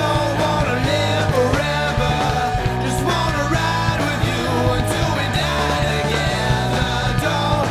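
Raw rock song played by a three-piece band: electric guitar and drums under a voice singing.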